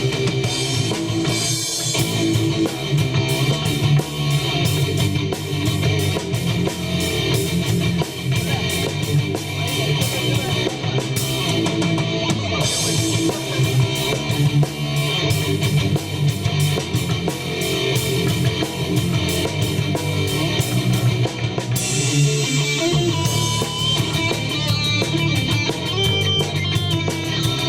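Rock band playing live: electric guitar over a drum kit with steady cymbal and drum hits.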